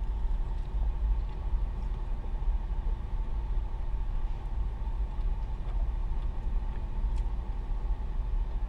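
Steady low engine rumble of a big truck idling in the next parking space, heard from inside a parked car.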